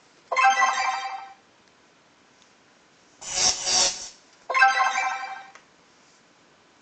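Sound effects of the Paint Lightning drawing app played through a phone's speaker as strokes are drawn: a buzzy electronic tone about a second long, then a short noisy crackle a couple of seconds later, and straight after it a second buzzy tone like the first.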